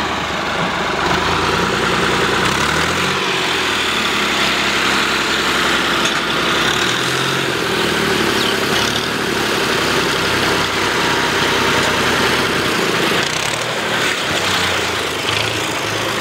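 Farm tractor's diesel engine running under load as it climbs a ramp of loose soil, revving up and down several times while its wheels dig in and it begins to bog down.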